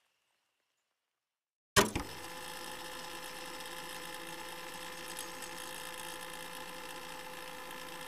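Near silence, then a sharp click about two seconds in, and a small machine starts a steady hum made of several fixed tones over a faint hiss.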